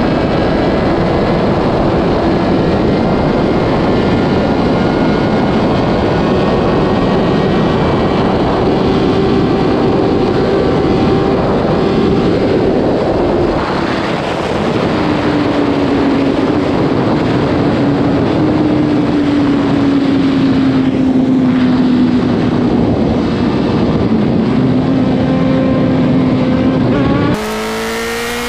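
Sport motorcycle running at speed on a motorway: a heavy rush of wind noise with the engine's steady tone under it, its pitch sagging slowly in the middle. About a second before the end the sound cuts abruptly to a quieter, cleaner track in which the engine revs up with a rising pitch.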